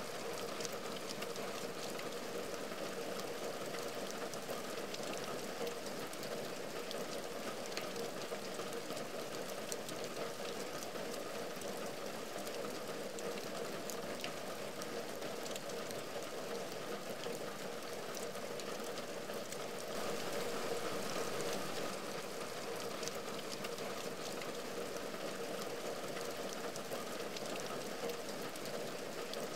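Steady rain falling on a window and its wooden cornice: an even hiss of rain with many small, separate drop hits, a little louder for a couple of seconds about two-thirds of the way through.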